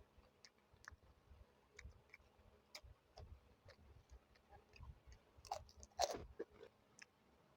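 A person eating close to the microphone: faint chewing and wet mouth clicks, with a louder crunchy bite about six seconds in.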